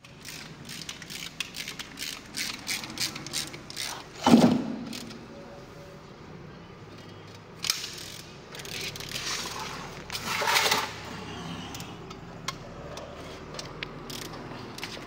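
Metal tools and gear parts being worked by hand: a run of quick clicks and clinks, one loud metallic clang with a short ring about four seconds in, then rasping, ratchet-like bursts later on.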